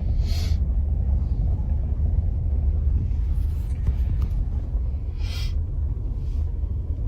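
Strong wind rumbling on a phone microphone during storm footage: a steady low rumble with a few short hissing gusts.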